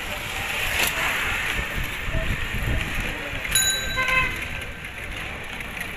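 A cycle rickshaw rides along a street, with road and street noise and a low rumble throughout. A short bell ring comes about three and a half seconds in, followed straight away by a brief toot.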